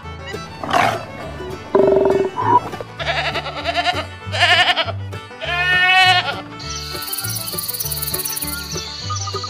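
A series of bleating farm-animal calls, several with a wavering quiver, over background music with a repeating bass line. Near the end the calls stop and a steady high hiss with regular ticks takes over.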